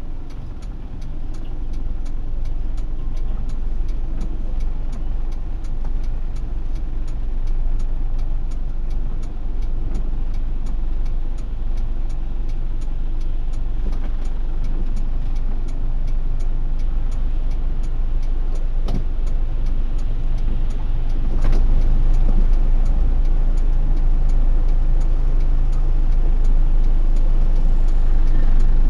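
Inside a Honda Odyssey RA6 driving slowly through floodwater: a steady low rumble of engine and road, with many light ticks of raindrops on the windshield. It gets a little louder about two-thirds of the way through.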